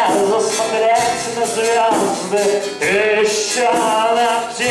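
Live folk band playing: a man singing a melody into a microphone over a strummed acoustic guitar.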